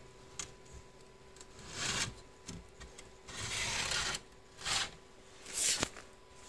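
Sliding glass doors of a terrarium scraping along their frame track in four strokes, the longest about halfway through, with a sharp click near the end.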